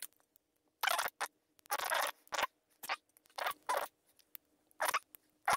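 Small metal lock parts being handled as a Euro-profile half cylinder is taken apart: a string of short, irregular scraping and clicking bursts.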